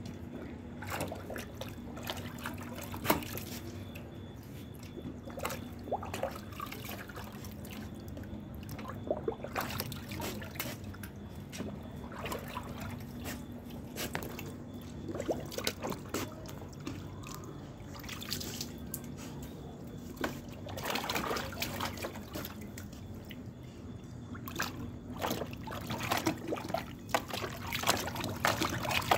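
A Bhotia dog splashing water in a plastic tub with its paw and muzzle: irregular splashes, drips and trickles, busier near the end.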